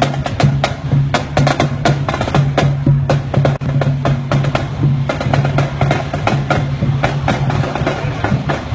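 Marching band drums playing a fast, steady cadence of sharp snare strikes with bass drum beats, over a steady low hum.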